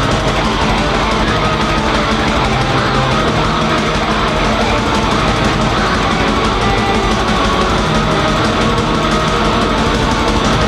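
Raw black metal music: a loud, unbroken wall of heavily distorted guitar.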